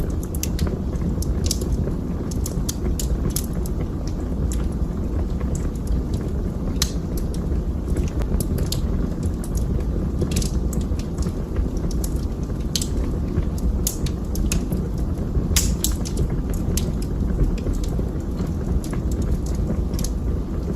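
Wood fire burning in a fireplace: irregular sharp crackles and pops, a few each second, over a steady low rumble of the flames, with one louder pop about three-quarters of the way through.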